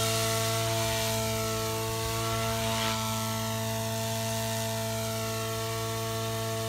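Electric RC helicopter (a Goblin 380 converted to 420) flying low, its Xnova motor and main rotor giving a steady buzzing drone at constant pitch under the governor-held head speed.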